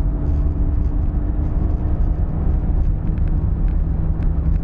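Renault Megane II 1.6 16v petrol engine and road noise heard from inside the cabin while driving at a steady speed: a constant low rumble with a steady engine hum. The car is running normally on its newly replaced fuel pump.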